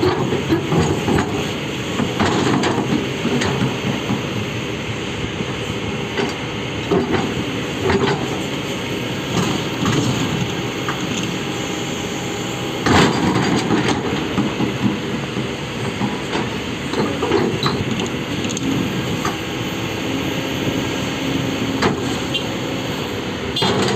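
Excavator running steadily under a continuous mechanical rumble, with irregular metallic clanks and knocks throughout; the loudest knock comes about 13 seconds in.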